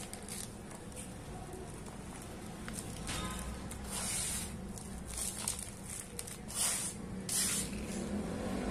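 Hands sweeping and rubbing dry sand-cement powder across a hard surface: a series of short swishes, the loudest in the second half.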